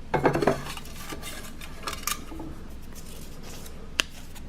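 A hand rummages through a can of paper raffle tickets: a burst of clattering and rustling at the start, softer scraping and clicks about two seconds in, and one sharp click near the end.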